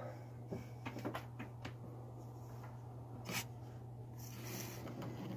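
Faint steady low hum with a few soft clicks and taps of hands handling sandpaper cloth at a copper pipe stub; no sanding is heard yet.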